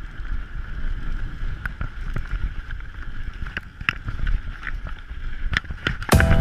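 Mountain bike riding down a dirt trail: wind rumbling on the microphone, with scattered clicks and rattles from the bike. Music starts near the end.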